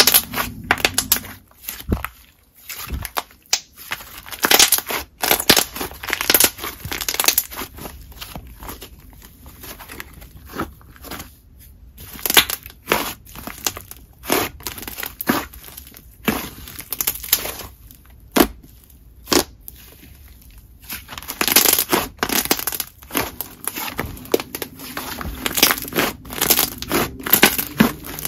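Thick clay slime being squeezed, folded and pressed by hand, giving irregular clusters of sharp pops and crackles as trapped air bubbles burst, with brief pauses between handfuls.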